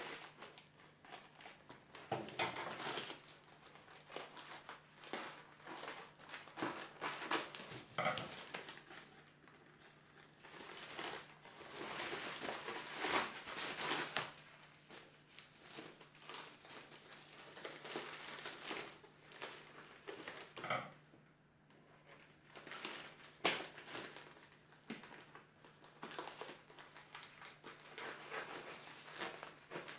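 Shipping packaging being opened by hand: plastic and paper crinkling and rustling in irregular bursts, with a few short knocks.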